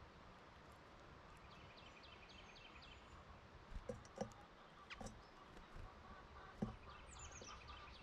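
A songbird singing a quick series of about seven repeated high notes about a second and a half in, and a falling series of repeated notes near the end. A few soft, short knocks in between.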